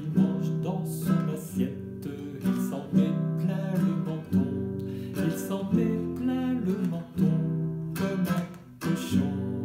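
Nylon-string classical guitar strummed in steady chords, with a man singing a French children's song over it.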